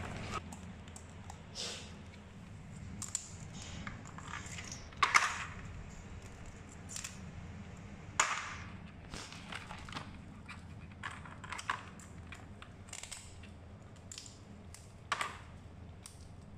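Live mud crabs being handled and cleaned in plastic basins: scattered knocks, clicks and scrapes of hard shells and claws against plastic. The loudest knock comes about five seconds in, with another sharp one near eight seconds.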